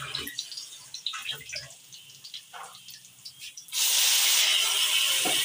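Water poured into a hot wok of browned fried onions and oil, setting off a sudden loud, steady sizzle and hiss of steam about four seconds in. Before it, only a few light clicks.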